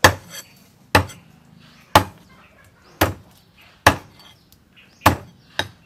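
Cleaver chopping a tire track eel into pieces on a thick round wooden chopping block: seven sharp strikes about once a second, the last two close together.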